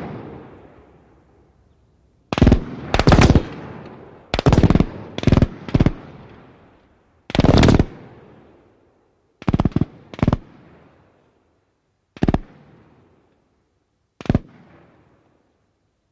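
Gunfire in short bursts and single shots, about ten at uneven intervals, each loud crack trailing off in a long echo.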